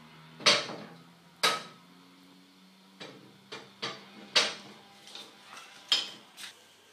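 Round cast iron cooking lid on top of a cast iron wood stove being lifted and set back into its seat: a series of sharp metal clanks, with four loud ones and lighter knocks between them.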